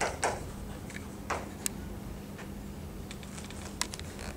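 Chalk tapping and scraping on a blackboard in a few short strokes during the first second and a half, followed by scattered faint clicks over a steady faint hum.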